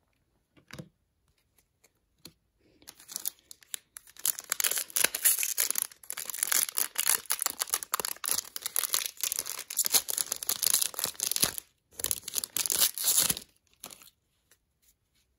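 Wrapper of a Topps baseball card pack being torn open and crinkled by hand: a few faint ticks, then dense crackling from about three seconds in that lasts some eight seconds, a brief pause, and another second or so of crinkling near the end.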